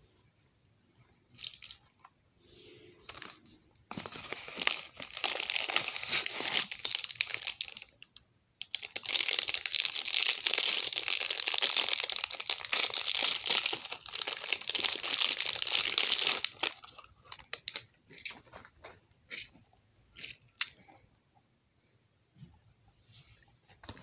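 Clear plastic bag around a stress ball crinkling and rustling as it is handled and pulled open, in short bursts at first, then a long loud stretch, then a few scattered crackles.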